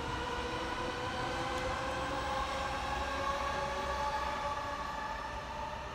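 Electric commuter train's traction motors whining with several steady tones over a low rumble of wheels on rail. The pitch rises slowly as the train gathers speed.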